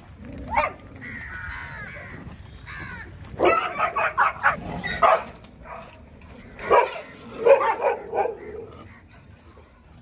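Dogs barking and yipping in short bursts, in two clusters about three seconds in and about seven seconds in, with a thin high whine about a second in.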